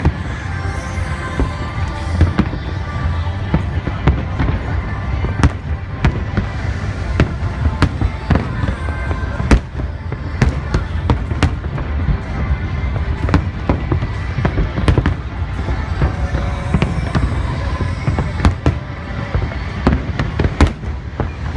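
Aerial fireworks bursting in quick succession: a dense run of sharp bangs, several a second, over a continuous low rumble of explosions.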